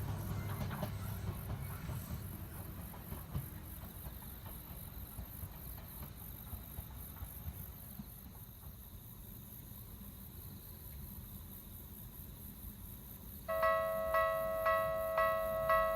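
An Ueda Electric Railway 1000-series electric train's rumble fading away, leaving quiet farmland ambience with a steady high insect chirring. About 13 seconds in, the level crossing's electronic Tokyu-type warning bell starts ringing, about two strikes a second: the crossing is closing for the next train.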